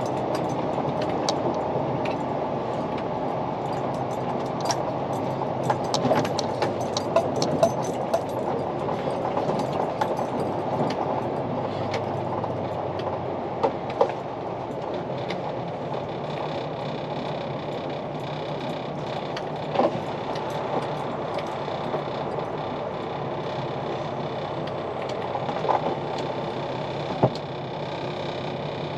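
Steady engine and road noise inside a semi-truck's cab while driving, with a few sharp clicks and rattles scattered through it.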